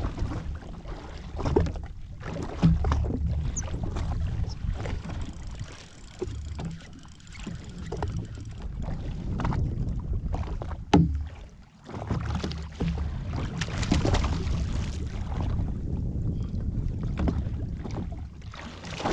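Wind buffeting the microphone and water sloshing around a drifting jetski, with scattered short knocks and one sharp, loudest knock about eleven seconds in.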